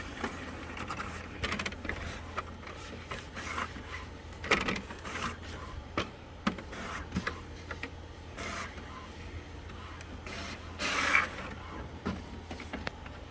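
HP OfficeJet Pro 8710 inkjet printer working, with irregular clicks and scrapes over a steady low hum and a louder rushing stretch near the end.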